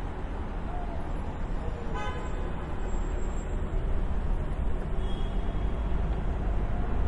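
City street traffic with a steady rumble of passing vehicles, and a brief car horn toot about two seconds in.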